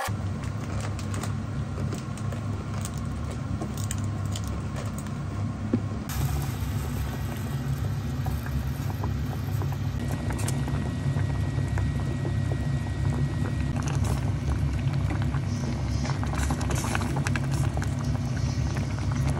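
Pot of ramyeon broth boiling hard on a gas burner with noodles and rice cakes in it: a steady low rumble with many small bubbling pops and crackles.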